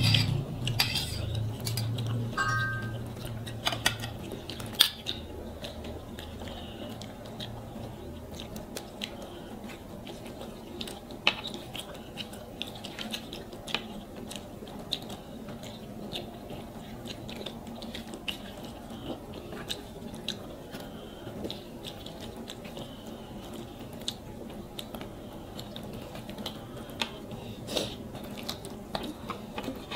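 Close-up eating sounds of a meal of rice and fish curry eaten by hand: chewing and mouth clicks, with fingers working the food on the plates, in many small sharp clicks. Near the start a steel spoon clinks briefly against a steel dish.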